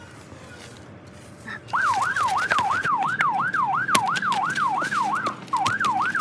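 Electronic siren sound in a fast yelp: one tone sweeping up and down about three to four times a second. It starts about two seconds in and breaks off briefly near the end.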